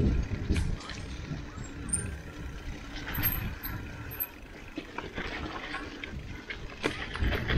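Mountain bike rolling down a rough dirt trail: a low, uneven rumble from the tyres and the mic-mounted bars, with scattered clicks and knocks as the bike rattles over bumps, louder at the start and again near the end.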